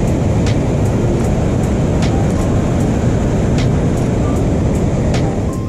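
Steady roar of water pouring over a dam spillway and churning below it, with faint ticks now and then.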